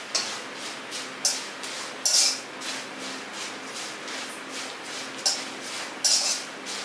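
Cornflakes frying in hot oil in an iron wok, a steady sizzle, with a wire-mesh skimmer stirring through them and scraping against the pan several times.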